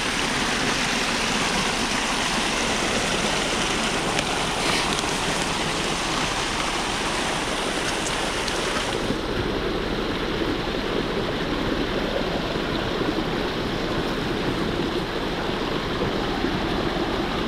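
Water rushing steadily through a beaver dam, its hiss growing duller about halfway through.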